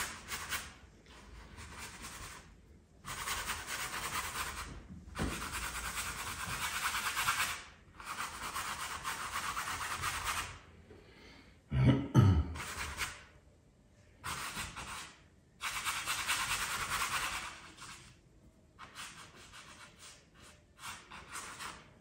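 Flat bristle paintbrush scrubbing dark oil paint onto a stretched canvas: scratchy strokes lasting a few seconds each, with short pauses between them. A short, louder sound comes about twelve seconds in.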